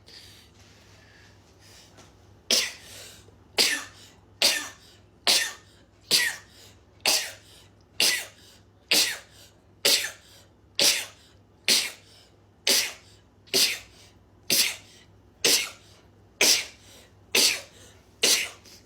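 A young woman sneezing over and over in a sneezing fit: about eighteen sharp sneezes in a steady run of roughly one a second, starting a little over two seconds in.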